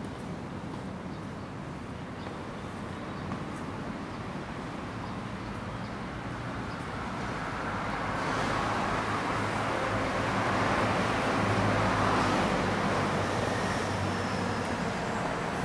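Road traffic noise with a low engine hum, swelling over several seconds about halfway through as a vehicle passes, then easing off slightly.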